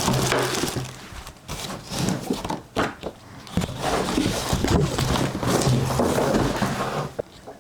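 Packaging being handled: a plastic bag crinkling and rustling and cardboard scraping as a bagged bidet toilet seat is lifted out of its box, with irregular knocks and clicks.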